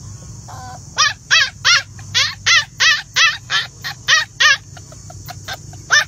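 Black puppy yapping: a quick run of about a dozen high-pitched yaps, about three a second, starting about a second in, then a pause with a couple of faint ones and one more loud yap near the end.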